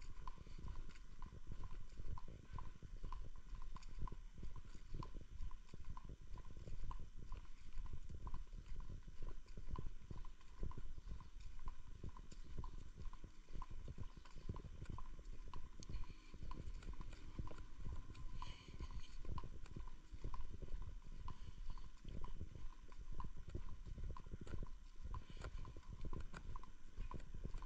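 Footsteps of a person walking on paving stones at a steady pace, about two steps a second.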